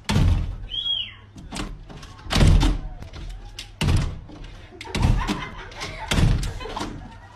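A wooden-framed glass door being jerked and banged by its handle: repeated heavy thumps and rattles, about one a second. There is a brief high squeak about a second in.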